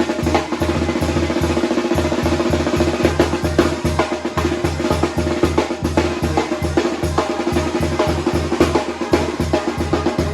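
Banda sinaloense playing live: the tambora's low beats and the snare drive a fast, even rhythm under a steady wall of brass and wind.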